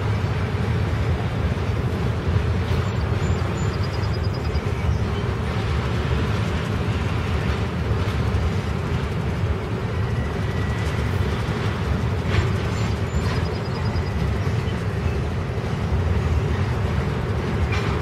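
Intermodal freight train's cars rolling past: a steady rumble of steel wheels on rail, with a few faint clicks.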